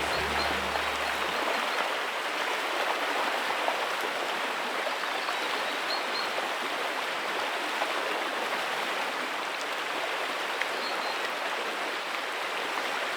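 Shallow river water running steadily over stones, a continuous even rushing and babbling. The tail of background music fades out about a second and a half in.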